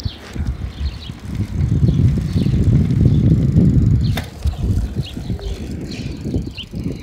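Wind buffeting a phone's microphone and tyres rolling on pavement as a bicycle is ridden, an uneven rumble, with one sharp click about four seconds in and birds chirping in the second half.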